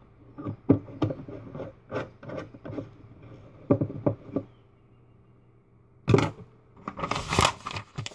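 Light taps and knocks of things being handled on a desk, then, about six seconds in, paper rustling and crumpling close by.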